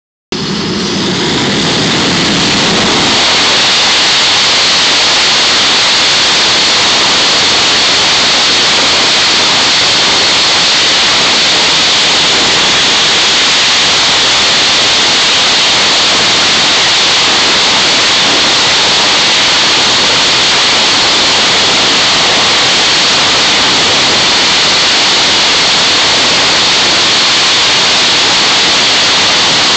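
Jet engines of an F/A-18 Hornet-type fighter running on an aircraft carrier's catapult: a loud, steady, hissing rush that builds over the first few seconds and then holds even.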